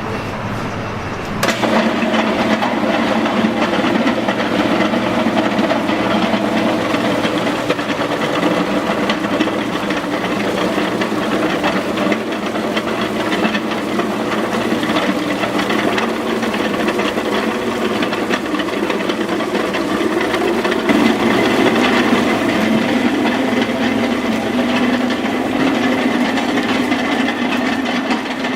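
Starch-plant machinery running loud and steady, a droning hum with a hiss over it; it jumps suddenly louder about a second and a half in.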